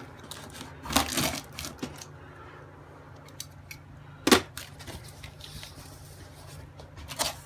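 A cardboard box being opened by hand: scattered knocks, clicks and scrapes of cardboard flaps, with a sharp knock about four seconds in.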